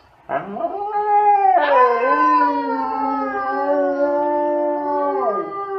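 A Siberian husky and a woman howling together. One long howl begins just after the start, a second howling voice joins about a second and a half in, and both hold a fairly level pitch until they stop together near the end.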